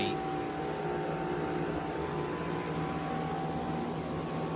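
2017 Lasko Performance heat pump outdoor unit running steadily while frozen up with thick ice, a hum with a held tone over fan noise. The owner takes it for a refrigerant leak and says it does not sound happy.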